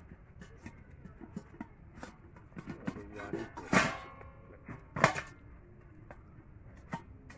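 A knife scoring a whole raw chicken and the bird being handled on a steel plate: scattered soft taps and clicks, with two louder clanks of the steel plate, the first ringing briefly, about four and five seconds in.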